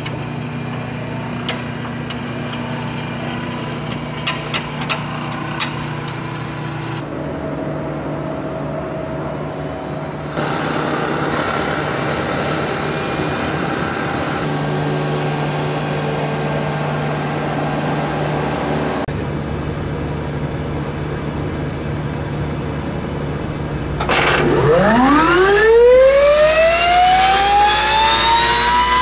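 Steady machinery hum with a few clicks, changing abruptly several times. About 24 s in, a Garrett TFE731 turbofan spools up on its starter, a loud whine that climbs steeply in pitch as the turbine speed rises during the start sequence.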